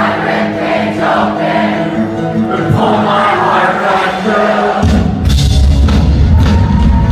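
Live rock band heard from within the audience: an acoustic guitar with many voices singing together, then drums and bass come in loudly about five seconds in.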